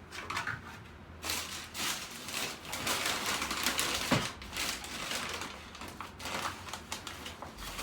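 Packaging rustling and crinkling with irregular clicks and clatter as plastic model parts are unwrapped and handled, starting about a second in.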